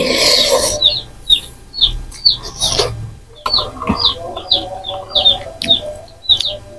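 A small bird chirping over and over, a few short high chirps a second. A brief slurp of noodles comes at the start, and there are a few light clicks of a spoon against a bowl.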